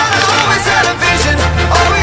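Background music; a deep bass line comes in about a second in.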